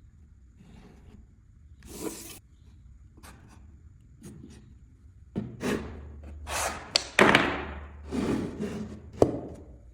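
Wood and hand tools being handled on a workbench: scattered knocks and scraping or rubbing. The sounds are sparse at first and get busier and louder in the second half, with sharp knocks about seven seconds in and again near the end.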